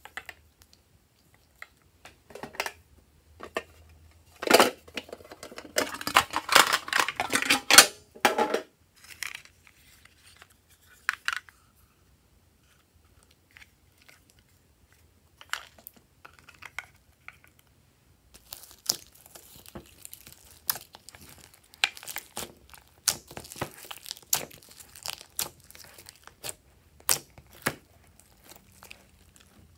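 Hands working glossy slime: sticky clicks and crackles as plastic charms are pressed onto and lifted from the slime, then a quiet stretch. After that, dense crackling and popping as the slime is stretched and folded.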